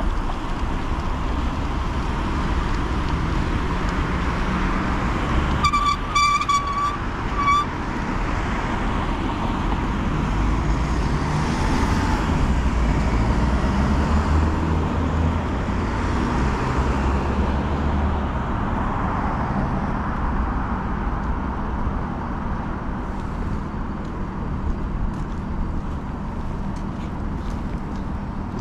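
Street traffic and wind noise heard from a moving bicycle, with a vehicle passing in the middle. About six seconds in, a high-pitched warning toot sounds for about a second, followed by a brief second toot.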